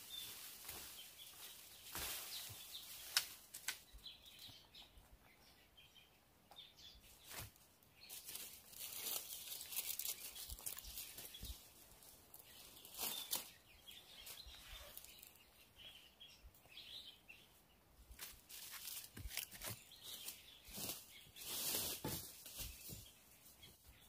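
Intermittent rustling and scraping with scattered sharp clicks, in irregular bursts, with faint bird chirps in the background.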